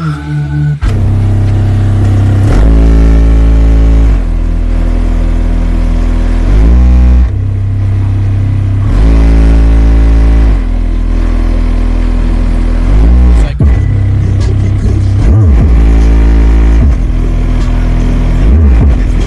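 Two Ground Zero subwoofers in a car boot playing very loud, deep bass notes that step to a new pitch every second or two, with a few quick gliding sweeps. The bass starts just under a second in.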